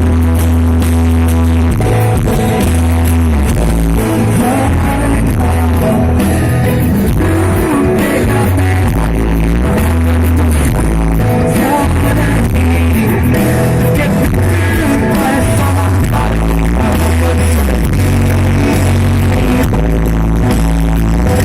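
Live rock band playing loudly through a concert PA, with heavy sustained bass notes and a sung melody over the top.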